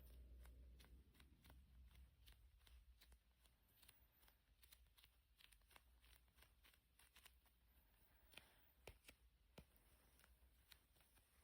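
Faint, irregular clicks and taps close to the microphone, several a second, with a few sharper clicks past the middle, over a low hum that fades away in the first couple of seconds.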